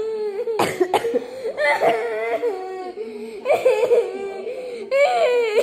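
A small dog howling and whining in long, wavering cries, mixed with a person's put-on sobbing that sets it off.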